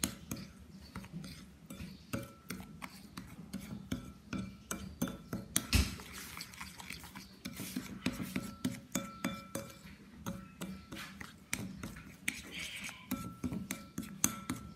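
A spoon scraping and clicking irregularly against a ceramic plate while stirring a thick creamy mixture, with one louder knock about six seconds in.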